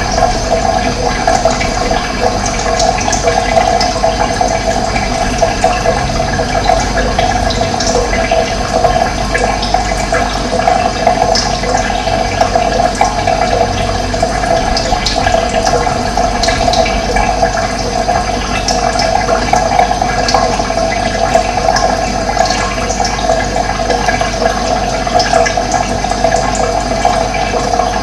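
Running water, a steady rushing flow, with short high bird chirps now and then.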